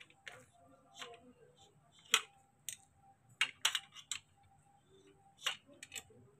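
Irregular sharp clicks and light knocks of a hand screwdriver and plastic frame parts being handled as a screw is set into a baby swing's plastic joint to be tightened, the sharpest click about two seconds in.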